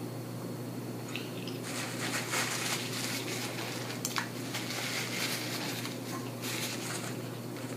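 Close-up eating sounds of a person eating with her fingers: wet chewing, lip smacking and finger sucking in a run of short bursts from about two seconds in, over a steady low hum.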